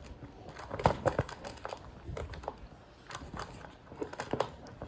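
Plastic tray of a Summer Infant Pop 'n Sit booster seat being handled and pushed onto the seat's round mounts, its latches pulled: scattered light clicks and knocks with some rubbing, the loudest knocks about a second in.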